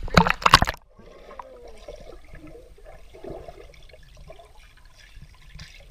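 Pool water splashing loudly for about the first second, then muffled gurgling and sloshing of water for the rest, heard through a waterproof-housed GoPro at or just under the water surface.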